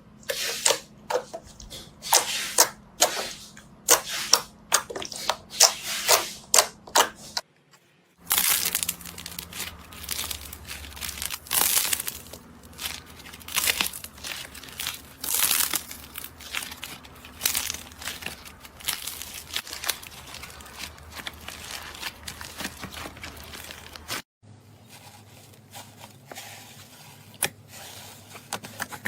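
Slime being pressed, squeezed and poked by hand, giving a run of sharp crackling clicks and crinkly crunching. The sound breaks off twice for a moment.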